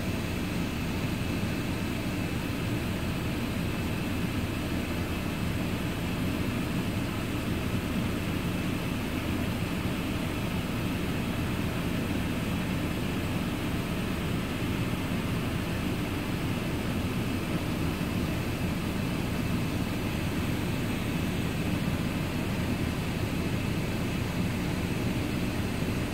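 A steady, unchanging low rumble, like a distant engine or traffic drone, with a faint high steady tone above it.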